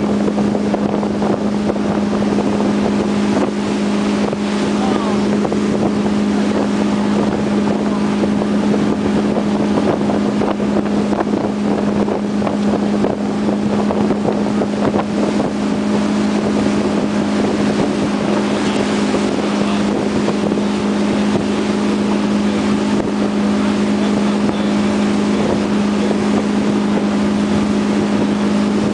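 Tow boat's engine running steadily at towing speed, an unchanging low drone, with water rushing and wind buffeting the microphone.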